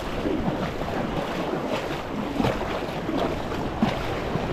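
Small waves washing and lapping in shallow water, with a few brief splashes and wind on the microphone.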